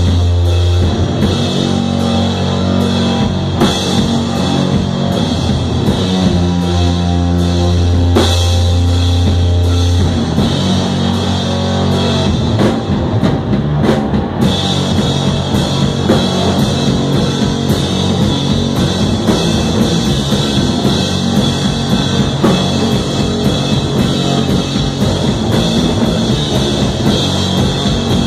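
Live rock band of electric guitar and drum kit playing loud. A low guitar chord is held under the drums for the first ten seconds or so; after that the drumming gets busier and denser.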